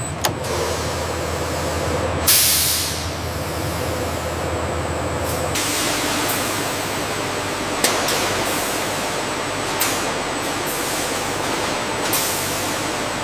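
Steady factory machinery noise with a sharp burst of hiss, like released air, about two seconds in, and a few brief clicks later on. The low hum drops away about halfway through.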